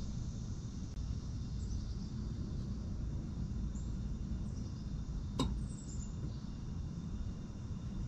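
Mitsubishi inverter heat pump outdoor unit starting up in cooling mode: a steady low hum, with one sharp click about five and a half seconds in.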